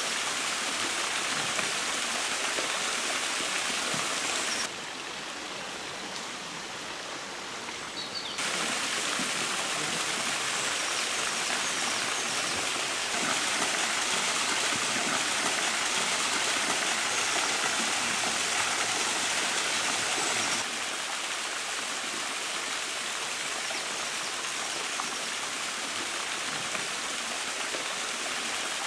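Small waterfalls spilling down a cliff face and splashing into a pool: a steady rush of falling water. It drops in level about five seconds in, comes back about three seconds later, is at its loudest from about thirteen to twenty-one seconds, then eases off.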